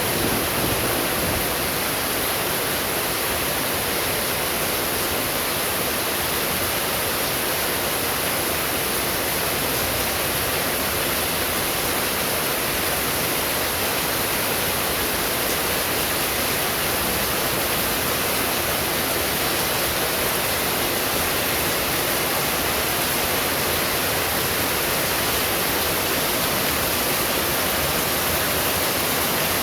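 Heavy rain falling in a steady, even hiss, with no thunder rumble or clap.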